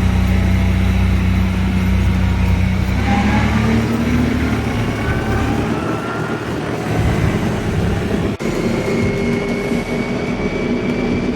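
ATV engine running under way, with steady low engine tones at first. Its pitch then shifts as speed changes, with short rising whines, and there is a brief drop in level about eight seconds in.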